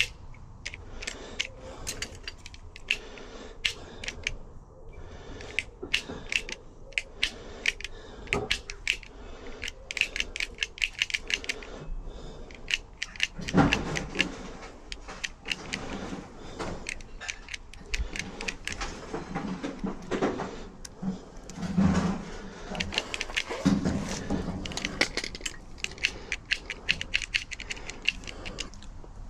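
Rapid metal clicks, rattles and scrapes from hand tools working on a jammed UPVC door lock mechanism, with a few heavier knocks in between.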